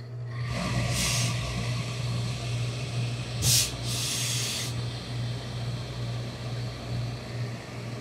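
Industrial steam iron pressing wool trousers: short hisses of steam about a second in and twice more around three and a half to four and a half seconds, over a steady low hum.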